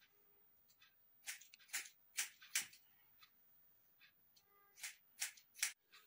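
Barber's scissors snipping hair, a quick crisp snip at a time. The snips come in two short runs: four starting about a second in, then three more near the end.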